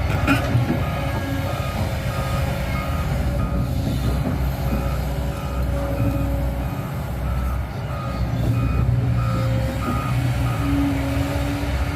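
Excavator's warning alarm beeping in a steady series, about two short beeps a second, over its diesel engine running.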